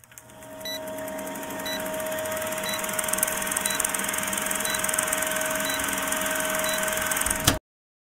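Machinery running steadily: a noisy hum with a few held tones and a short high tick repeating about once a second. It builds up over the first couple of seconds and cuts off abruptly near the end.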